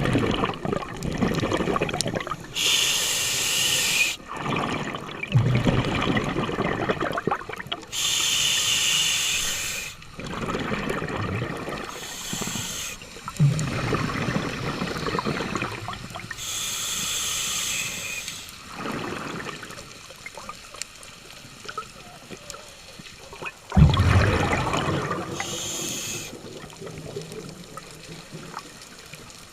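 Scuba diver breathing underwater through a regulator. Hissing inhalations alternate with bursts of exhaled bubbles about every five or six seconds, and a sharp knock about 24 seconds in is the loudest sound.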